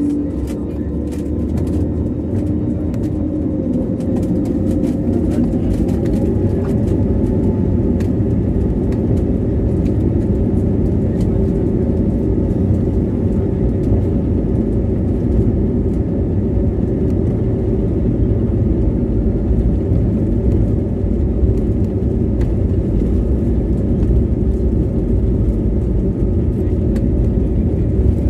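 Airbus A320-family jet airliner on its takeoff roll, heard from inside the cabin: the engines at takeoff thrust together with the rumble of the wheels on the runway. The sound builds over the first several seconds and then runs steadily and loud.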